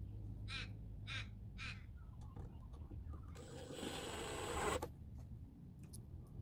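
A bird calling three times, about half a second apart, then a hissing burst of noise about a second and a half long that cuts off suddenly and is the loudest thing heard.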